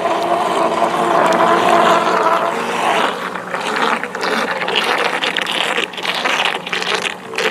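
Small outboard motor of a model inflatable RIB running at speed with a steady whine, over water rushing and splashing at the hull. From about three seconds in the whine fades and choppy, irregular splashing takes over.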